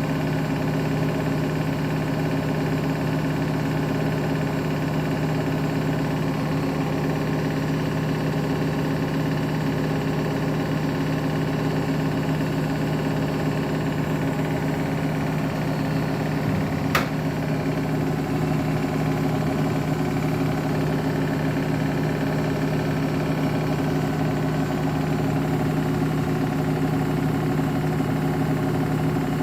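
Beko WTK104121W washing machine running steadily with an unbalanced load, its motor humming at a constant speed. One sharp click a little past halfway.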